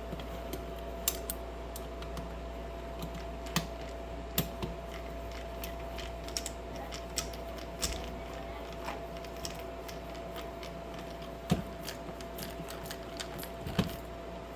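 Irregular small clicks and taps of hands handling tools and small metal parts while wiring a dishwasher's electrical junction box, over a steady faint hum.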